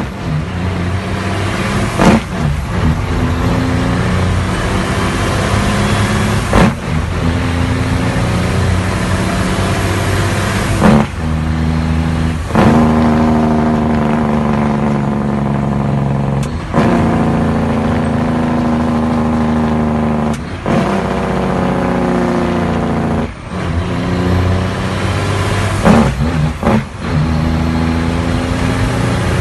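Straight-piped Cummins diesel truck engine running under load, heard from inside the cab. Its note breaks off briefly about eight times, every few seconds.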